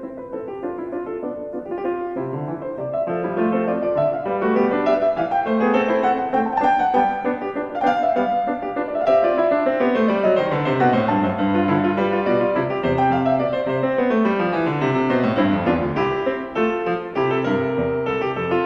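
Piano music with flowing runs of notes, several sweeping downward in pitch.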